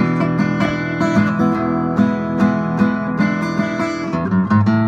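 Background music: strummed and plucked acoustic guitar with regular strokes.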